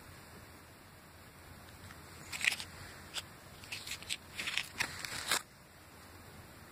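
Clear plastic sleeve around a silver bar crinkling and clicking as it is handled, a run of short crackles lasting about three seconds, starting a couple of seconds in.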